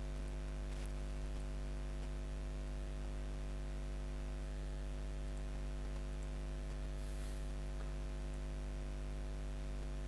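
Steady electrical mains hum with a ladder of overtones over faint hiss, with a couple of very faint clicks.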